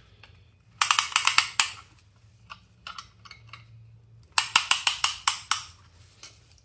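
Ratcheting band of a piston ring compressor clicking as an Allen wrench tightens it around a piston, squeezing the rings into their grooves. Two runs of rapid clicks, one about a second in and another just past four seconds in, with a few single clicks between.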